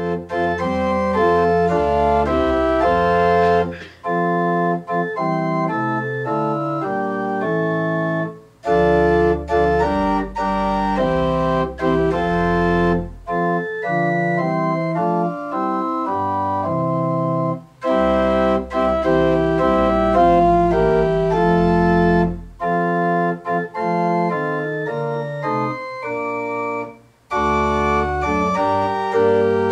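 Church organ playing sustained chords over deep held bass notes, in phrases with a few brief breaks between them.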